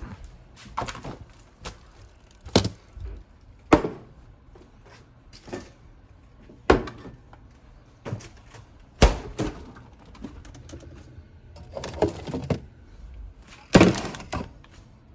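A series of irregular knocks and thumps, about a dozen, some coming in quick pairs, with short scuffing between them.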